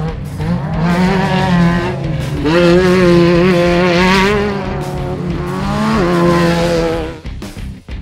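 Off-road race buggy engines running hard at high revs, the pitch climbing about two and a half seconds in and dropping near six seconds with the throttle, over background rock music with a beat. The engine sound falls away near the end, leaving the music.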